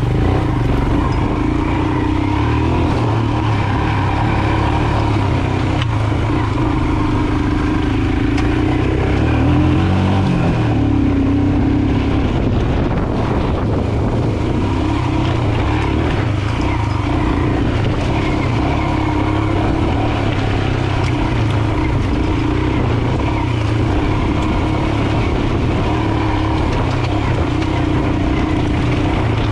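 Royal Enfield Himalayan's 411 cc single-cylinder engine running under way as the motorcycle is ridden off-road. Its note rises and falls once about ten seconds in, with a change of throttle.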